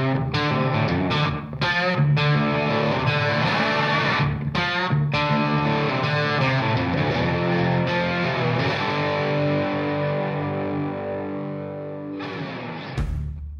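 Outro music on distorted electric guitar: choppy stop-start chords, then a long held chord that slowly fades, with one short last hit near the end.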